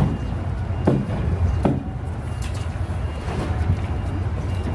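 Honda NC700X's parallel-twin engine idling steadily, with a few short knocks over the rumble in the first two seconds.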